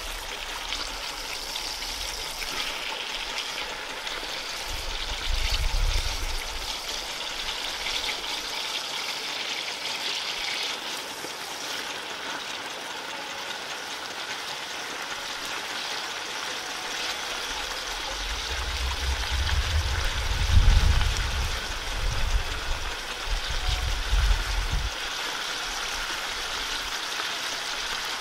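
Steady rush of water running throughout. Low wind buffeting on the microphone comes briefly about five seconds in, then again for several seconds past the middle, where it is at its loudest.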